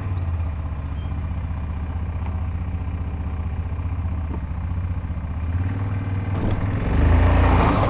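ATV engine running steadily while it pulls a heavy log, working harder and louder in the last second or so.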